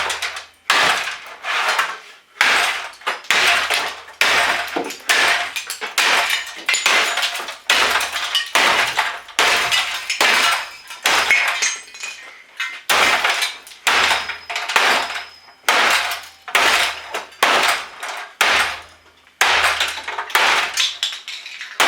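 Claw hammer repeatedly striking an old desktop computer's metal case and circuit boards, about one blow a second, each with a clattering, ringing rattle of loosened parts.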